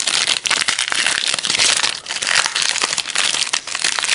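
Foil wrapper of a trading-card pack crinkling and crackling as it is torn open and the cards are pulled out.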